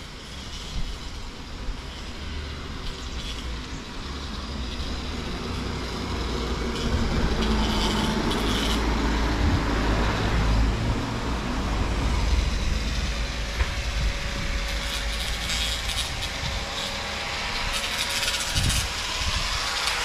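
A large engine rumbling close by, growing louder about six seconds in and staying strong, over general street noise.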